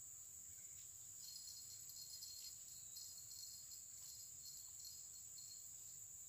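Faint insect chorus: a steady high-pitched drone, joined about a second in by a second insect's rhythmic, pulsing chirps.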